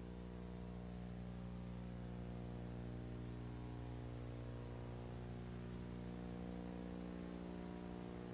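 Steady low electrical hum with a faint even hiss, unchanging throughout, on a recording that otherwise carries no sound.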